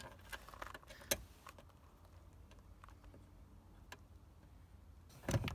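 Small scattered clicks and ticks of a bolt being threaded in by hand inside a car's door-handle recess, against the plastic door trim. There is a sharper click about a second in and a louder knock near the end.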